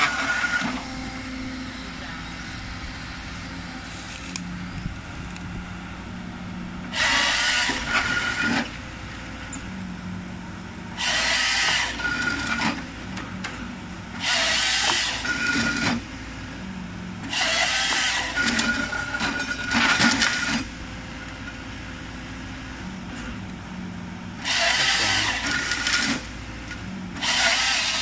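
Crawler excavator's diesel engine and hydraulics running steadily while its harvester head feeds and saws through a tree stem in loud bursts, six times, each a second or two long.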